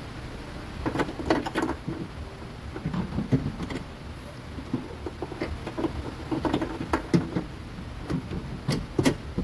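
Irregular clicks and knocks as the trunk handle housing, with its new switch, is handled and fitted back into the hatchback's tailgate. The clicks come in a few clusters: about a second in, around three seconds, around seven, and just before the end.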